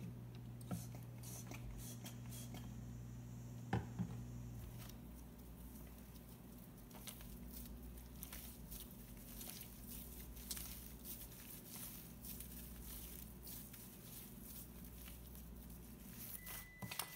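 Cloud cream slime being kneaded and squeezed by hand as foaming hand soap is worked in, giving faint squishes and many small crackling clicks over a steady low hum.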